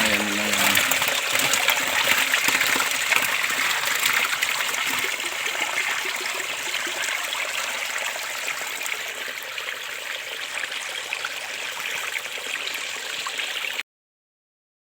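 Steady rushing of flowing water that fades a little and cuts off suddenly near the end.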